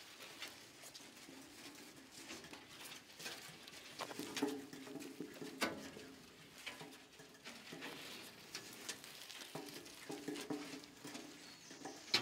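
Corten steel edge of a turning sculpture ploughing through soft, damp soil: a scraping, crumbling drag with irregular clicks of grit and clods.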